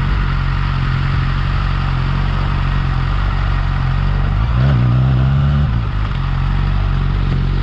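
Yamaha R6 inline-four engine on its stock exhaust, idling steadily, with one short throttle blip about halfway through that raises the revs for about a second before they drop back to idle.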